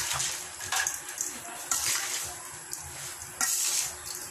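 Hands mixing grated santol flesh with salt in a stainless steel bowl, a rustling scrunch in uneven strokes, four of them louder than the rest.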